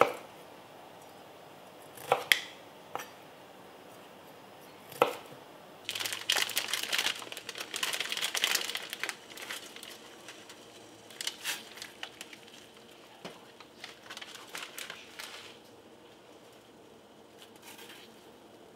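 A few sharp knocks of a knife on a chopping board, then a plastic food packet crinkling and being torn open for a few seconds, with more scattered crinkles afterwards.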